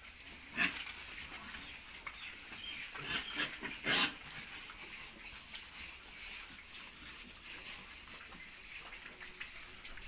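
Young pigs snuffling and grunting as they root at feed on the pen floor. There are a few short grunts, one about half a second in, several around three seconds in and the loudest about four seconds in.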